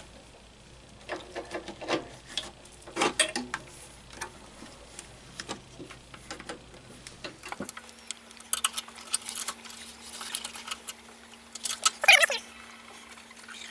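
Clicks, knocks and light rattles of a new battery being handled and worked into the battery compartment of a Dixie Chopper mower. A faint steady hum runs through the second half, and near the end there is one louder short scrape that falls in pitch.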